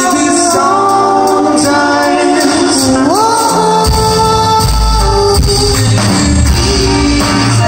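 Indie rock band playing live with layered sung harmonies held over keyboards, amplified in a concert hall. About three seconds in, the voices glide upward, and heavy bass comes in about a second later.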